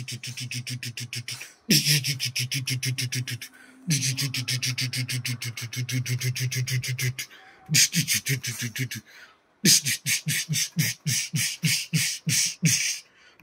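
Rapid rattling play-gunfire sound, about ten clicks a second over a low buzz, in several long runs and then shorter bursts with brief gaps between.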